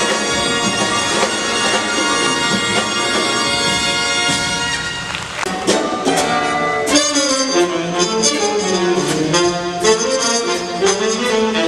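Big band playing live: the horn section holds sustained chords, then about five and a half seconds in the drums hit and the band moves into a rhythmic passage with moving horn lines.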